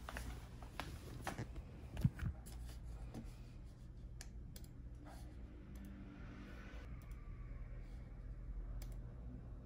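A low steady room hum with a few scattered light clicks and taps, most of them in the first three seconds.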